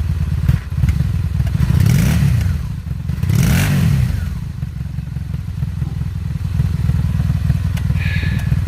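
2002 Honda Magna VF750C's V4 engine idling with a steady low pulse, revved up and back down twice, about two and three and a half seconds in. The owner is chasing a misfire and popping that he hears on the right-hand cylinder bank.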